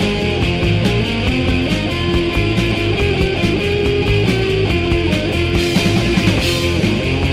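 Loud punk rock track with distorted electric guitars and a drum kit playing steadily.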